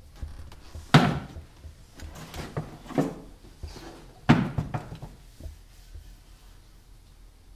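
Wooden crate knocking down hard onto a wooden floor: two loud thuds about three seconds apart, with lighter knocks and scrapes between them.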